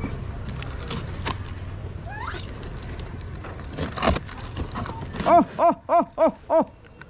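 An animal call of five short pitched notes, each rising and falling, in quick succession at about four a second near the end. Earlier come a few sharp knocks from handling the cardboard apple box.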